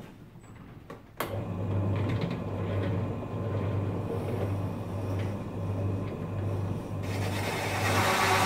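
Benchtop drill press switched on about a second in and running with a steady motor hum. About seven seconds in a louder, harsher cutting noise joins it as the hole saw is fed down into the wooden blank.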